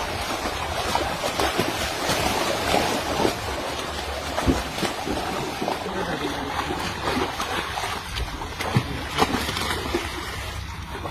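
Water splashing and sloshing in a shallow ditch, with many short, irregular splashes.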